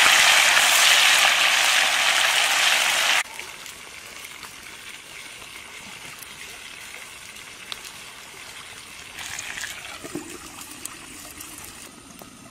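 Water boiling hard with mushrooms in a clay pot over a wood fire: a loud, steady bubbling hiss that cuts off suddenly about three seconds in. After that a faint steady outdoor background with a few small clicks.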